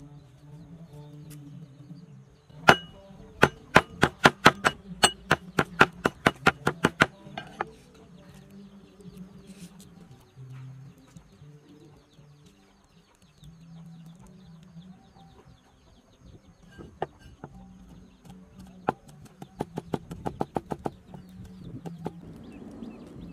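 Cleaver chopping on a wooden chopping block: a quick run of sharp knocks, about five a second for some four seconds. After a quieter lull, a shorter, lighter run of chops on peeled garlic comes near the end.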